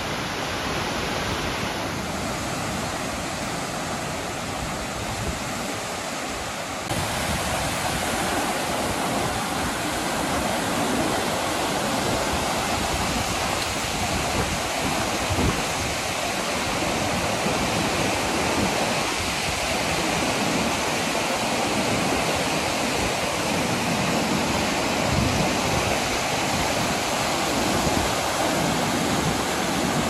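River in flood, fast muddy floodwater rushing: a steady rushing noise that gets louder about seven seconds in.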